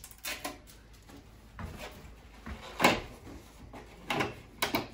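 Plastic front cover of a Fujitsu ductless mini-split indoor unit being fitted onto the unit: a series of sharp plastic clicks and knocks as it seats and snaps into place, the loudest about three seconds in.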